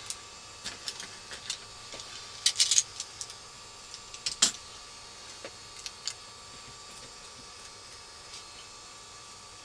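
Sellotape being handled and pressed onto paper: scattered small clicks and crackles, a quick crackling run about two and a half seconds in and a sharp click near the middle, then quiet handling.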